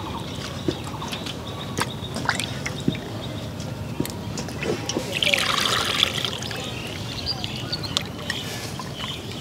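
Hands washing cut catfish pieces in a plastic bowl of water: scattered wet clicks and knocks as the pieces are moved, with a short burst of splashing about five seconds in.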